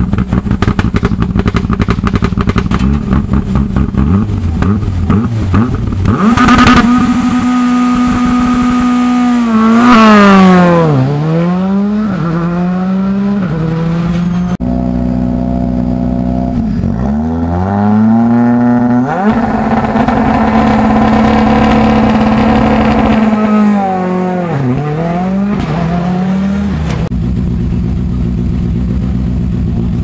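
Rally car engines at a stage start. A car idles with rapid, even popping, then holds steady high revs before launching away, the revs dropping and climbing again through quick gear shifts. A second car does the same, and another engine idles near the end.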